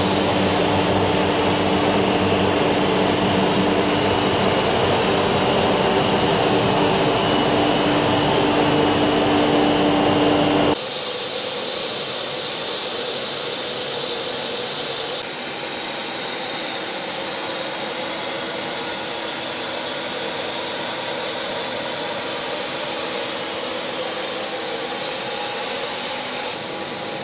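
Suction machinery of a COMAGRAV NOTUS 1600 CNC router, its high-pressure vacuum hold-down table and dust collector, running with a steady rushing hum. About eleven seconds in, a steady hum cuts out suddenly and the sound drops to a lower, steady rush.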